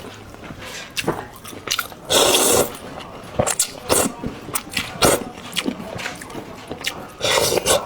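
Close-miked eating of chicken-broth rice noodles: two half-second slurps, about two seconds in and near the end, with chewing and small clicks of utensils against the bowl in between.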